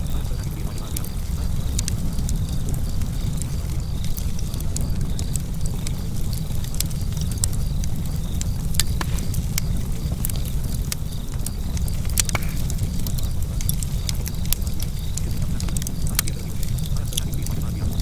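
Wood fire crackling: irregular sharp pops and snaps over a steady low rumble.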